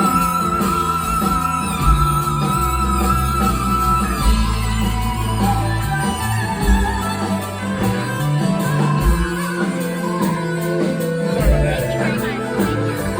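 Live rock band playing an instrumental passage with no singing. A high lead note is held with slight vibrato for about four seconds, then moving melody lines take over the bass and drums.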